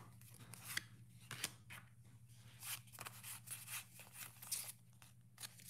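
Faint handling of Pokémon trading cards: scattered soft clicks and rustles as the cards are taken from the opened booster pack and fanned in the hands, over a low steady hum.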